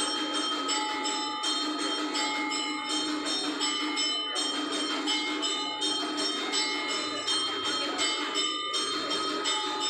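Brass temple bells ringing continuously, struck again in an even, repeating pattern about every second and a half, with a crowd's voices underneath.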